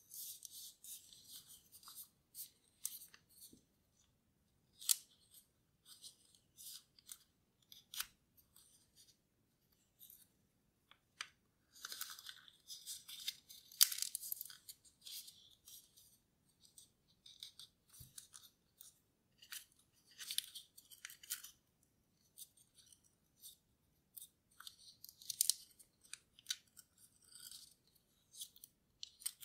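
A sheet of origami paper being folded and creased by hand: irregular crisp rustles and crinkles, with a few sharper snaps of the paper.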